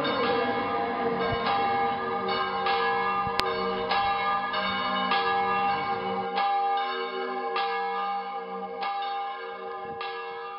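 Church bells pealing: a run of ringing strikes, a new one about every half second to second, fading away near the end.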